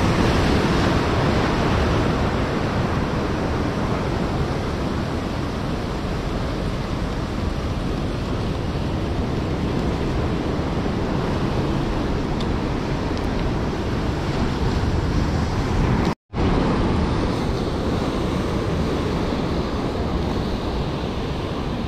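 Surf breaking steadily on the shore, with wind rumbling on the microphone. The sound drops out completely for a split second about sixteen seconds in.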